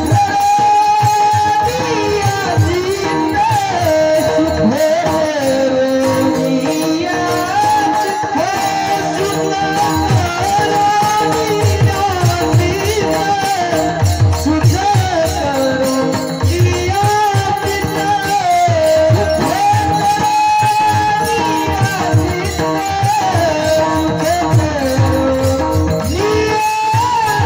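Marathi varkari kirtan music: a high singing voice carries a wavering devotional melody over jingling hand cymbals and steady drum beats.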